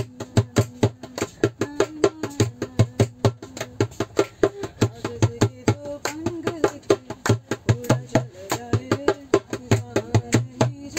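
Dholki hand drum played with bare hands in a quick, steady beat of about five strokes a second, with a woman singing along over it.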